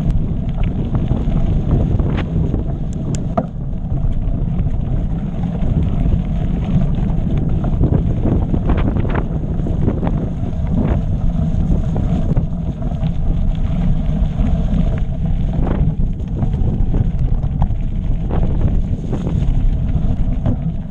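Wind buffeting the microphone of a camera on a moving mountain bike, a loud steady rumble, with frequent short knocks and clatters from the tyres and bike running over a rocky trail.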